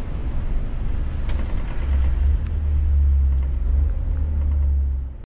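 Scania S500 truck driving, heard from inside the cab: engine and tyre noise with a deep low drone that grows louder about two seconds in.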